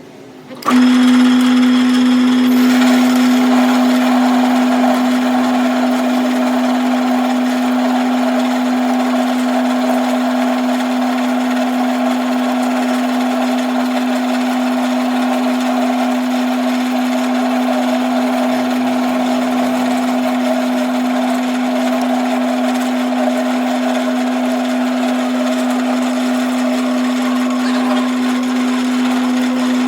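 An electric workshop machine starts up sharply about a second in and runs steadily with a strong, constant hum. A harsher, rougher noise joins about two seconds later and carries on without a break.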